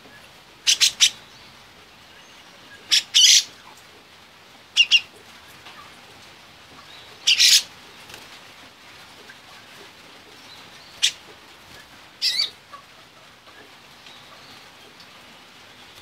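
Caged grey-cheeked bulbul (cucak jenggot) giving short, loud, sharp calls in six separate bursts a few seconds apart, some of two or three quick notes.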